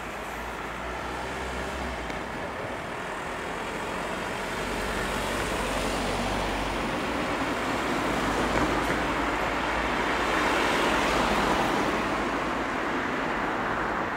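Cars driving over the level crossing and passing close by: tyre and engine noise swelling to a peak about ten seconds in, then easing off.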